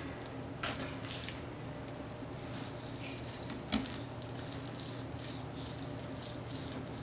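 Boning knife slicing fat off a raw brisket on a plastic cutting board: quiet, soft wet cutting and squishing, with a single tap near four seconds in, over a steady low hum.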